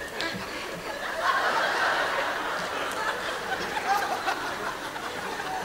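Audience laughing and giggling, many voices together, swelling about a second in.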